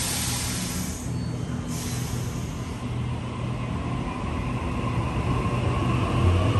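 Sydney Trains A set (Waratah) double-deck electric train pulling away, its traction motors' whine rising slowly in pitch as it accelerates over a low rumble that grows louder. A hiss sounds near the start and again about two seconds in.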